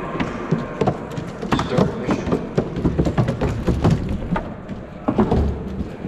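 Irregular knocks and thuds of a four-legged robot's feet striking the course, over a low rumbling background.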